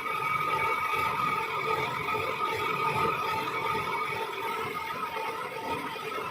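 Metal lathe running steadily, with a constant high whine over a rough low rumble.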